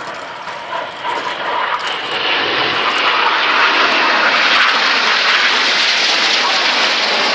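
Formation of Red Arrows BAE Hawk jets flying past. Their jet noise builds over the first two seconds, then holds steady and loud.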